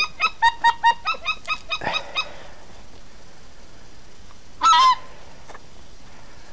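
Geese honking: a quick run of short, overlapping honks in the first two seconds, then a quieter stretch broken by two longer honks, one just before five seconds and one at the very end.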